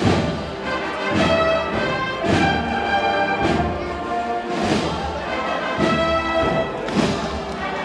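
Procession band playing a slow processional march: held chords with a beat about once a second.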